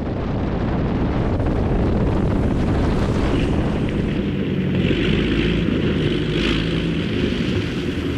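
Small propeller airplane's piston engine and propeller running steadily.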